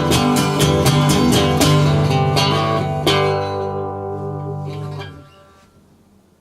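Acoustic guitar strumming the last bars of a song, then a final chord struck about three seconds in that rings on and fades away.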